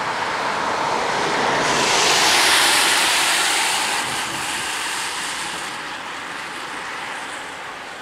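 A van driving past on a wet road, its tyres hissing through the water. The sound swells to a peak about two and a half seconds in, then fades as the van moves away. A steady hiss of rain lies underneath.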